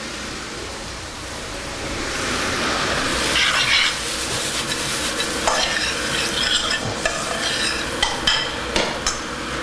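Drained boiled potatoes being mashed by hand in a pan, with a steady sizzling hiss and scattered short knocks of the utensil against the pan.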